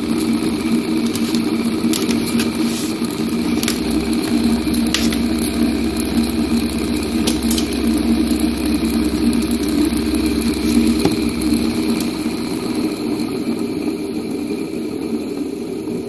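Brushed fan motor of a home-built Bedini generator running with a steady whir, a deeper hum joining from about four to eleven seconds in. The sound eases slightly near the end as the motor slows, bogged down when the multimeter is connected to the circuit.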